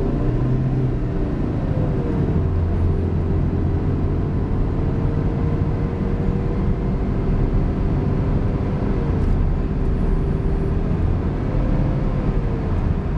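Proton Saga FLX with CVT heard from inside the cabin while accelerating on the road: the engine drones at a near-constant pitch, held around 3,000 rpm by the CVT as the car gains speed, over steady road and tyre rumble.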